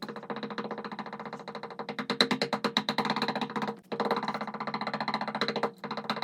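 Rapid, continuous knocking on a door, many knocks a second, breaking off briefly about four seconds in and again near six seconds.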